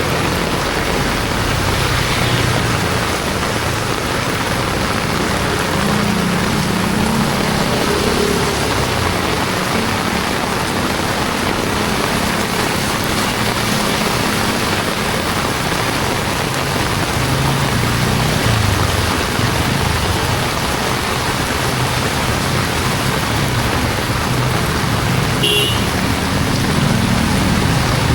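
Heavy rain pouring steadily on a city street, with the engines of passing motor vehicles running underneath, coming and going.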